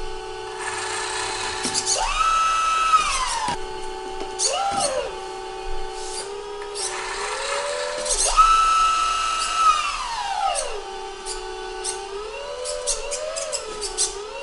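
Electric hydraulic pump of a 1/14-scale RC Volvo L250G wheel loader whining, speeding up in pitch several times as the hydraulic rams work the quick coupler and loader arm, then settling back to a lower steady whine. Light clicks come in between.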